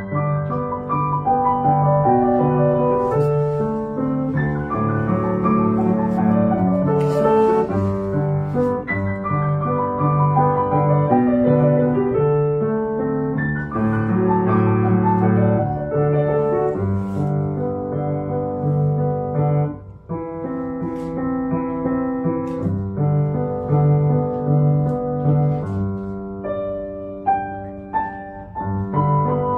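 Steinway grand piano played solo: a melody over a repeated bass figure, with a brief break in the playing about twenty seconds in.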